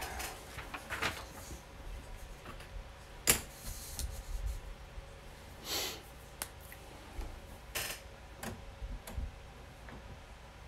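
A few scattered sharp clicks and knocks, as of small objects handled at a desk, the sharpest about three seconds in, with a short rustle near six seconds and more light clicks later on.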